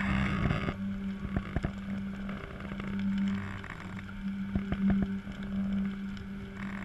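Big bonfire of a burning wooden structure, with scattered sharp cracks and pops, over a steady low engine-like hum that swells and eases every second or two.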